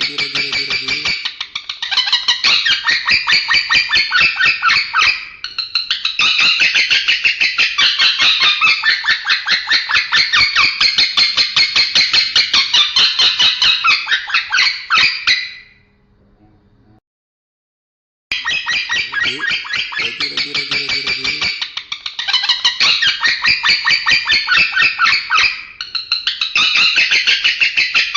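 Male lovebird chattering in long, rapid trills of short high notes. The sound breaks off for about two seconds midway, then resumes.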